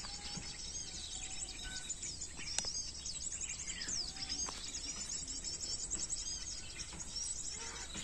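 Small-bird lure call played back from a speaker: a dense chorus of quick, high chirps and twitters, used to draw in small birds such as bulbuls.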